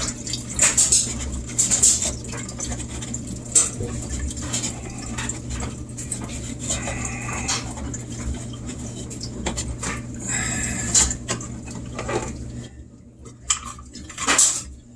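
Trapped water running out of a Whirlpool washing machine's drain-pump filter opening into a container, with clattering knocks from the container and the plastic filter housing being handled. The running water stops near the end, leaving only a few knocks.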